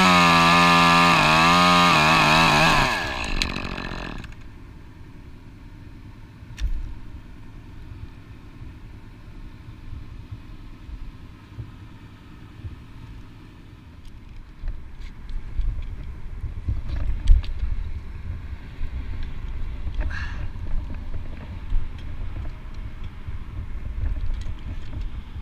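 Top-handle chainsaw at full throttle cutting through an elm limb, its pitch wavering under load. About three seconds in it falls in pitch and dies away, leaving low wind rumble on the microphone and a few faint knocks.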